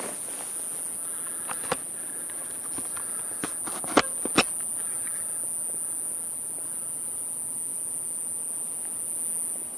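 Steady high-pitched insect hiss, with a few sharp clicks about four seconds in.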